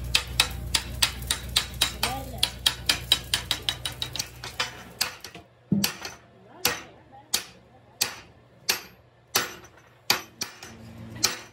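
Hammer blows on a steel chaff-cutter main shaft hub, driving it along the shaft: quick taps, about four a second, for the first five seconds, then slower single ringing strikes about every two-thirds of a second.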